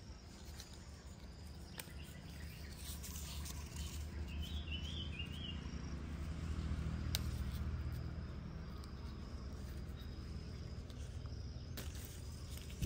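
Rural outdoor ambience: a steady low rumble with insects droning faintly and a short run of bird chirps about four to five seconds in, plus a few faint clicks.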